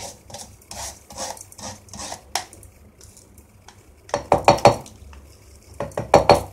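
Wooden spatula scraping roasted moong dal grains off a wire-mesh strainer into a steel mixer jar, in a run of short, light scrapes. About four seconds in, and again near the end, louder metal clatter comes from the strainer knocking against the steel jar.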